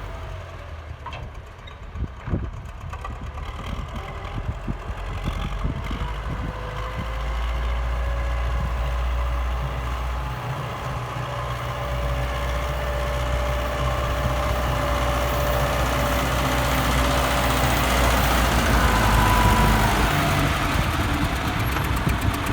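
Diesel engine of an EO-2621 excavator on a YuMZ tractor running and working, growing louder and heavier after about six seconds, with a steady whine over it through much of the middle and a higher whine briefly near the end.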